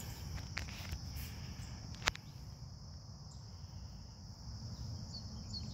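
Crickets chirring steadily in a high, continuous drone, over a low rumble, with one sharp click about two seconds in.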